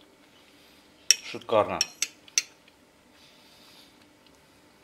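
Cutlery clinking against a ceramic plate: a sharp clink about a second in, then two lighter ones around two seconds in.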